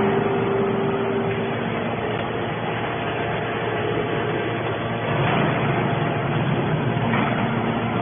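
Hydraulic scrap metal baler running: a steady mechanical drone from its electric motor and hydraulic pump as the press cover swings open, getting a little louder about five seconds in.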